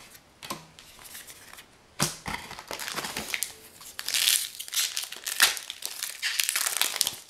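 A foil Magic: The Gathering booster pack wrapper crinkling and being torn open. It starts about two seconds in, after a few faint clicks of cards being handled, and is crackly and dense, loudest in the middle.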